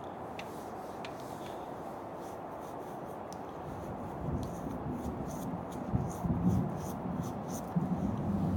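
Thunder rumbling in irregular low surges that begin about four seconds in and are loudest near the end, over a steady background hiss. Scattered light ticks run through the middle.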